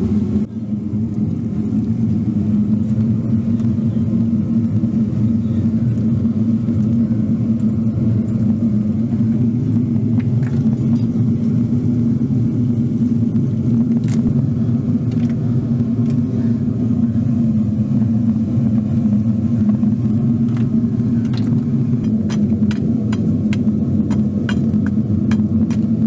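A steady low mechanical rumble. Over it come scattered sharp knocks, and near the end a quick run of taps from a metal rod ramming the packing between the steel drum and the brick furnace lining.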